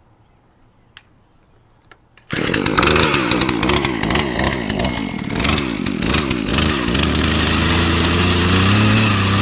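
Poulan gas chainsaw with a freshly sharpened chain, test-cutting. It comes in suddenly and loud about two seconds in, its pitch rising and falling as it bites, then holds steady at high revs for the last couple of seconds.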